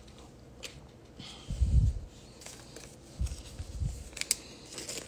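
Hands handling trading cards and foil card packs on a table: a low thump about a second and a half in, more soft thumps around three seconds in, and scattered light clicks and rustles.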